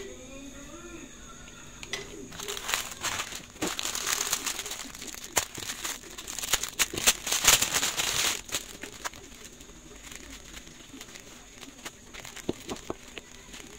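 Plastic packaging crinkling and crackling as it is cut and torn open, loudest from about two to eight seconds in, then softer rustling of tissue-paper padding with a few small clicks. A dove cooing in the background near the start.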